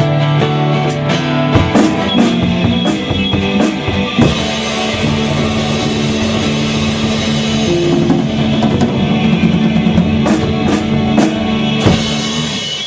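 Rock band playing: drum kit with repeated cymbal crashes over held guitar and bass chords. The low held chords break off near the end.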